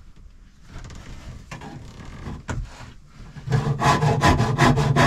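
Hand work on wood inside a boat's locker: a few faint knocks and scrapes, then about two-thirds of the way in, quick rasping strokes of wood rubbing on wood, about five or six a second, which are the loudest part.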